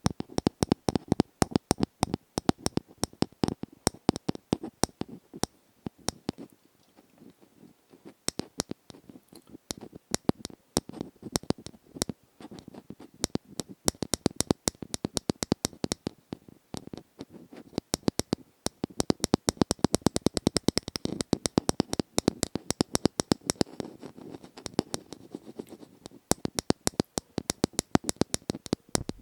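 Close-miked ASMR tapping and scratching: a rapid stream of crisp clicks and taps, several a second, with scratchy rubbing between them. The clicks thin out and soften for a few seconds early on, then pick up again.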